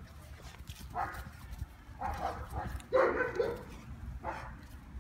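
German Shepherd puppy barking: a few short barks about a second apart, the loudest about three seconds in.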